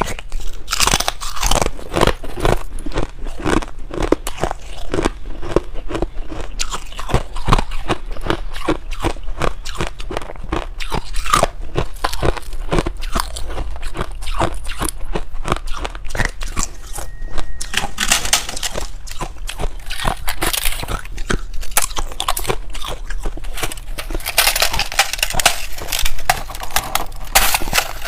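Freezer frost being bitten and chewed close to the microphone: a dense, continuous run of crisp, icy crunches, with grittier stretches about two thirds of the way through and again near the end.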